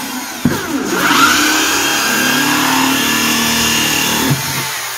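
A corded electric drill spins a hole saw through a plastic bucket lid. A little after the start the motor picks up speed with a rising whine and then runs steadily at speed. Near the end the trigger is released and it winds down.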